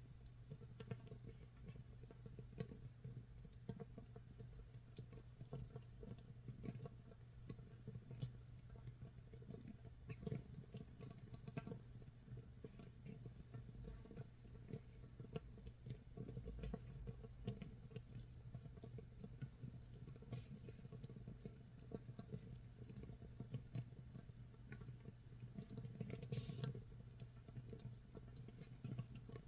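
Makgeolli starter mash fermenting in an earthenware jar, 24 hours in: a dense, irregular fizz of tiny crackles and pops as bubbles burst on the surface, like rain or scorched rice crackling. A faint steady low hum runs underneath.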